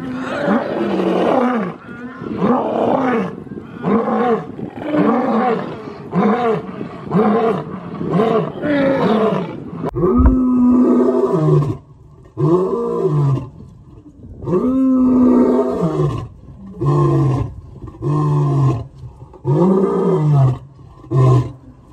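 Two male lions roaring in turn. First a roaring bout of short grunts, each rising and falling in pitch, about one every three-quarters of a second; then, after an abrupt change about ten seconds in, a white lion gives a few long roars followed by a run of shorter grunts about one a second.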